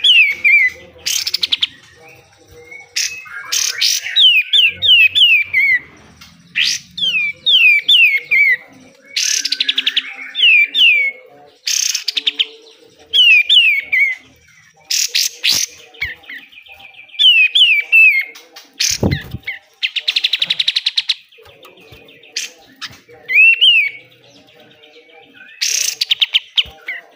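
Kapas tembak songbird singing hard: short bursts every second or two, fast runs of falling whistled notes alternating with harsh, rattling chatter, the aggressive 'besetan' song.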